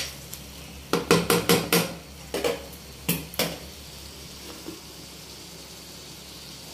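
Spatula knocking and scraping against a pan as a thick boneless chicken fry is stirred: a quick run of strokes about a second in, then a few more, after which only a faint steady hum remains.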